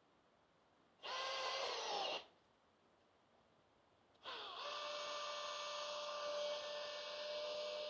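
Power saw motor triggered in a short one-second burst, then started again about four seconds in, winding up and running at a steady high whine.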